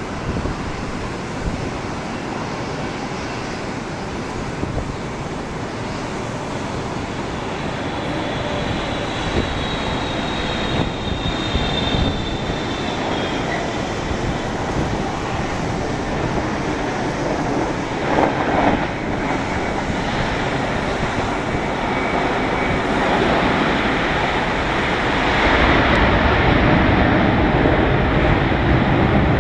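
Jet engine noise from a Boeing 777-300ER's GE90 turbofans as it lands and rolls down the runway: a steady rumbling roar, with a faint high engine whine for a few seconds mid-way. The roar gets louder near the end.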